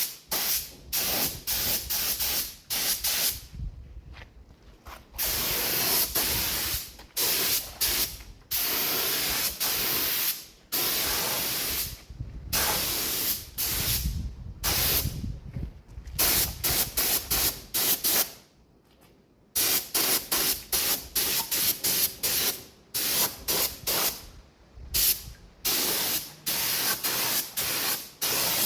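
Paint being sprayed onto a motorcycle frame: a hiss that starts and stops in many short bursts, with longer pauses about 4 seconds in and again about 19 seconds in.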